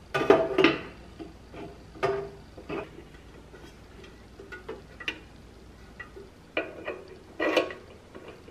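Metal bread pan and its wire handle clattering and knocking against the chamber of a Cuckoo bread maker as the pan is lowered in and pressed down to seat it. A cluster of clanks comes at the start and another comes near the end, with single knocks in between.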